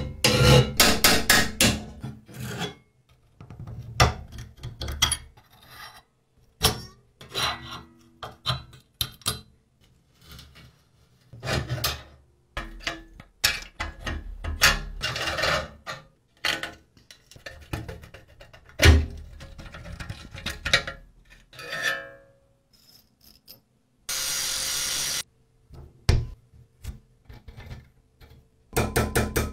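Hand tools working rusty metal parts: scraping, rubbing and clicking of metal on metal in short runs with brief silent gaps. About two seconds of steady hiss come a little before the end.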